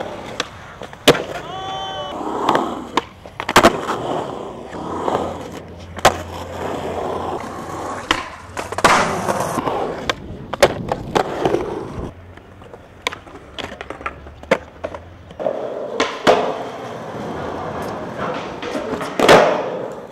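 Skateboard wheels rolling on concrete, broken by many sharp cracks of the tail popping and the board landing. A longer grinding scrape comes about nine seconds in.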